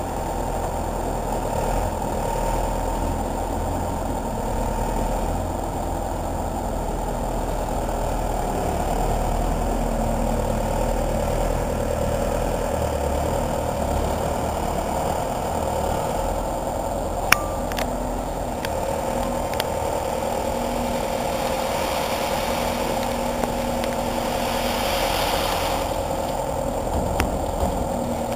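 Skid-steer loader's engine running steadily while it works, with a low rumble and a constant drone. A single sharp click stands out about seventeen seconds in.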